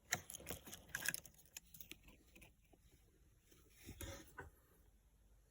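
A series of light clicks and rustling handling noises, thickest in the first two seconds, with another rustle and a couple of clicks about four seconds in.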